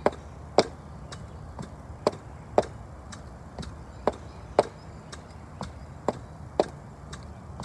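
High-heeled boots striking brick steps and a doormat in a steady step-up rhythm, sharp footfalls about twice a second, some heel strikes louder than others, over a low steady background hum.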